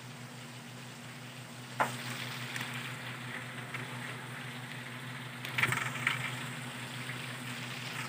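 Pork skin pieces sizzling and bubbling in their own rendered fat in an aluminium wok, the long first cook for chicharon. A sharp click comes about two seconds in, and a louder clatter of knocks comes about five and a half seconds in.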